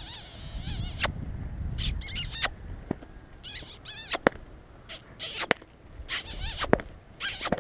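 A handler making repeated short, squeaky kissing noises, about six in a row, to urge a horse on around the pen, with a few sharp clicks among them.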